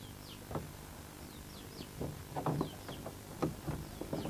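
Small birds chirping: short, quick downward-sliding chirps repeated about twice a second. A few soft knocks come in the second half.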